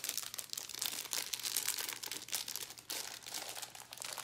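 Clear cellophane wrapper on a bakery bar crinkling as it is handled and opened: a dense, irregular run of small crackles.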